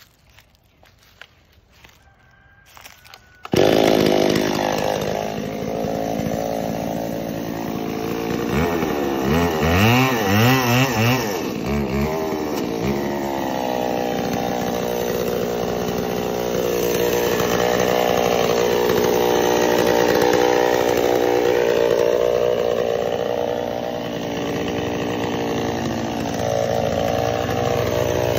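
Chainsaw starting suddenly about three and a half seconds in and running at speed, revved up and down several times a few seconds later.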